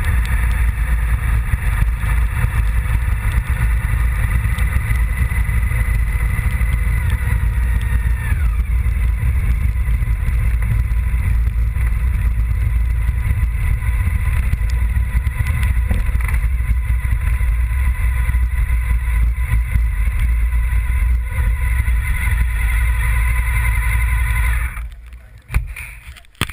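Honda VFR750's V4 engine running under way, under heavy wind rumble on the microphone; the engine pitch falls once about seven seconds in. Near the end the engine and wind noise drop away sharply as the motorcycle slows to a stop.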